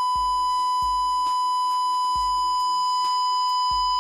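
A steady, loud 1 kHz sine test tone played through a 15-inch loudspeaker driven by a PAM8403 class-D amplifier. The tone carries a harsh edge of overtones because the amplifier is being pushed into clipping, toward about 10% distortion.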